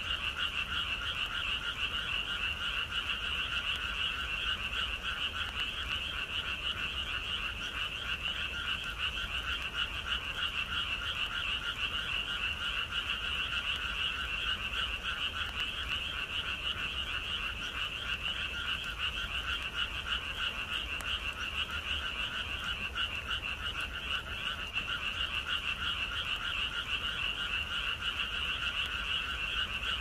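A dense chorus of many frogs calling at once on a rainy spring night, a steady unbroken din that holds the same pitch throughout.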